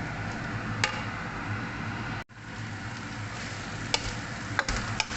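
Chicken and curry frying in a pot, sizzling, while a spoon stirs it and clicks and knocks against the pot, more often in the second half. The sound drops out briefly a little over two seconds in.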